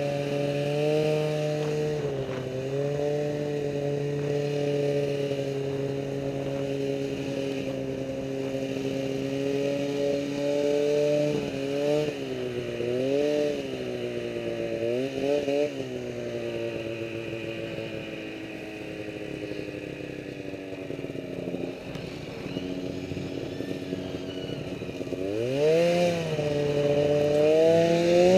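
Snowmobile engine running under way. Its pitch holds steady at first, rises and falls a few times with the throttle about halfway through, then climbs sharply near the end as it accelerates.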